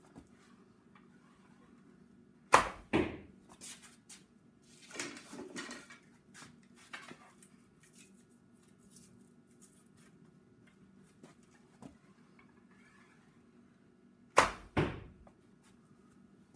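A bow being shot twice, about twelve seconds apart. Each shot is a sharp crack followed less than half a second later by a second knock as the arrow hits.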